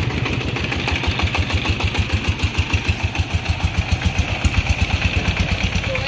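Single-cylinder diesel engine of a three-wheeled cargo vehicle running at standstill, a steady chugging of about eight beats a second that grows louder about a second in.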